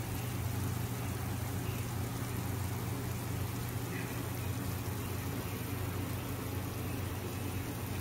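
Chicken pieces and oil sizzling steadily in a hot tawa, over a constant low hum.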